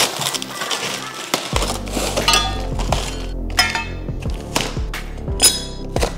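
Background music, with a bass line coming in about one and a half seconds in, over scattered metallic clinks of laser-cut aluminium brackets and plates being handled and set down on a workbench.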